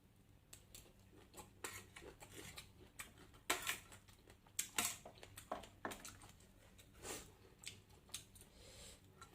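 A person eating: irregular soft clicks and crunches of chewing and handling food, coming a few at a time and then pausing.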